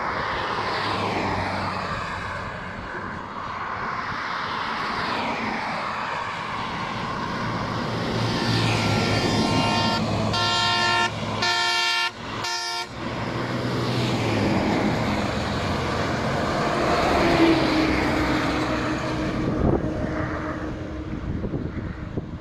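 Traffic on a road running beside the railway line, with vehicles passing one after another. About nine seconds in a loud horn sounds in a long blast, then twice more briefly.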